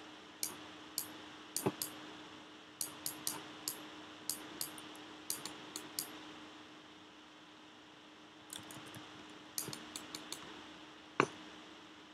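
Scattered light clicks and taps of computer input, a pen stylus on a drawing tablet and control clicks, coming in irregular clusters with a quieter stretch in the middle and one sharper click near the end, over a faint steady hum.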